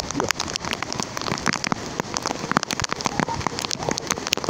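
Heavy rain falling, a dense, irregular patter of close drops over a steady hiss.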